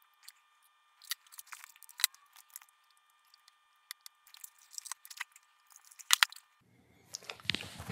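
Scattered light clicks and taps of hands handling test probes and tools on an amplifier's circuit board, then a sharper knock and a rustling rumble near the end as the metal amplifier chassis is picked up and turned over.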